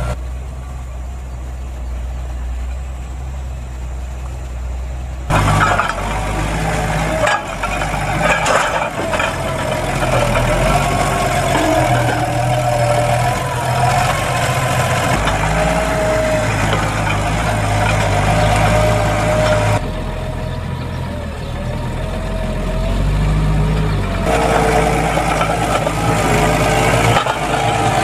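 Massey Ferguson 5475 tractor's diesel engine running under load as it pulls a reversible plough through the soil, with a wavering engine note over a haze of mechanical noise. The sound shifts abruptly a few times, quieter in the first few seconds and again around two-thirds of the way through.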